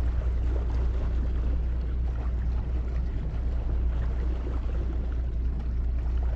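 Steady low drone of a sailing yacht motoring through calm water, with an even hiss of water and air over it.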